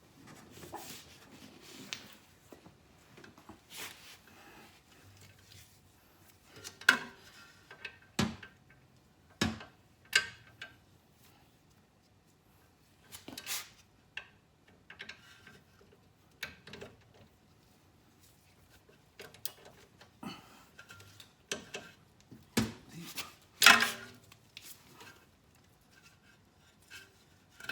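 Irregular metallic clinks and knocks of hand tools on the front axle and hub parts of a car, a dozen or so short hits scattered through the stretch with quiet gaps between them. The loudest come near the end.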